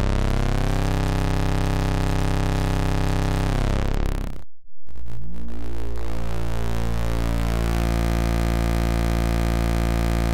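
Oscilloscope music: the stereo audio signal from the Unilateral Phase Detractor, a Raspberry Pi running Pure Data, that drives the scope's X and Y inputs to draw lettering. It is heard as a steady synthetic tone with many overtones, which cuts out briefly about four and a half seconds in and comes back with a different chord-like pattern.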